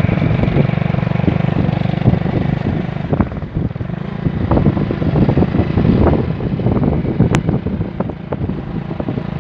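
A vehicle engine running steadily at road speed, mixed with rough, irregular wind rush and buffeting. There is one sharp click about seven seconds in.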